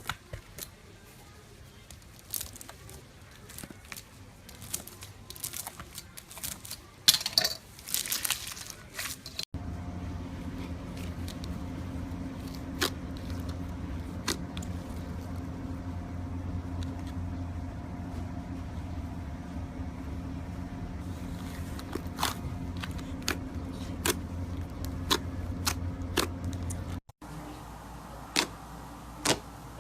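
Slime being squeezed and poked, giving many sharp popping and crackling clicks. A steady low hum comes in abruptly about ten seconds in and cuts off near the end.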